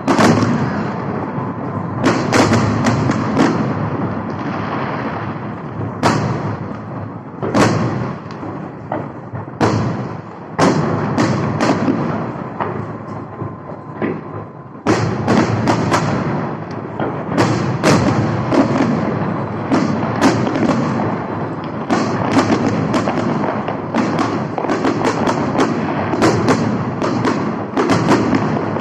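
Fireworks salute: repeated loud bangs of bursting shells with crackle between them, easing off briefly about halfway through, then a dense, rapid run of bangs.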